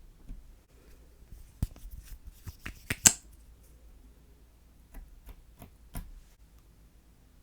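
Sharp clicks and small taps from hands handling small objects, a quick cluster in the first half with the loudest click about three seconds in, then a few more near six seconds.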